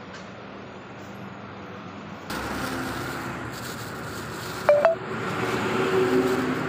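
Steady workshop background noise with a faint machine hum, becoming louder and brighter about two seconds in. A little before five seconds there are two short, high, chirping beeps.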